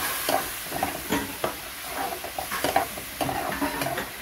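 A spatula stirring and scraping diced potatoes in a spice paste in a non-stick frying pan, with irregular scrapes and taps over a steady sizzle as the spices are fried down with a little water.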